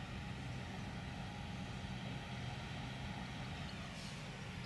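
Farm tractor's diesel engine running steadily as it works a hay tedder, a continuous low drone with a faint hiss over it.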